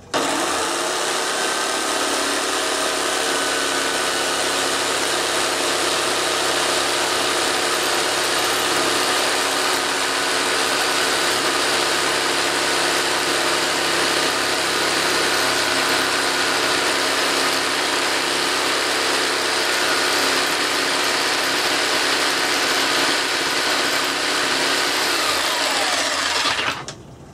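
Jigsaw running steadily as its blade saws across a yew board, working through the board's hard centre. Near the end the motor is switched off and winds down with a falling pitch.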